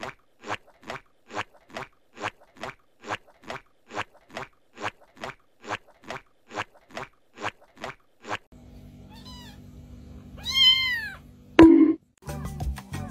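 A steady series of short noisy strokes, about two a second, for the first eight seconds. Then a domestic cat meows: a faint call, then a louder drawn-out meow, followed at once by a sharp knock.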